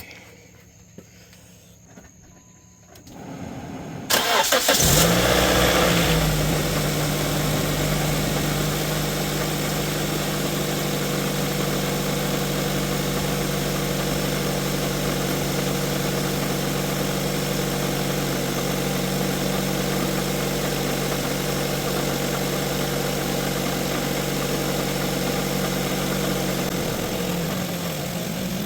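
The 2006 Nissan Sentra's 1.8-litre four-cylinder engine is cranked and starts about four seconds in. It then idles steadily, running to burp air from the cooling system after a water pump replacement. The idle is a little higher just after the start and settles within a couple of seconds.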